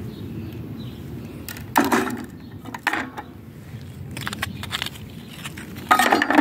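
Rusty scrap metal being handled and put into a plastic tub: a few separate clanks and clatters, the loudest near the end as a piece goes into the tub.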